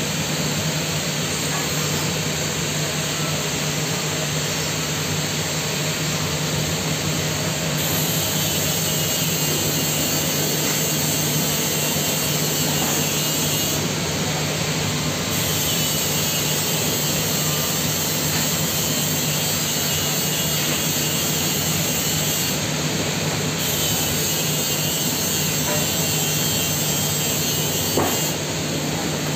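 Steady, loud drone of workshop machinery with a constant low hum, under TIG welding of a pipe socket joint. One short click comes about a second before the end.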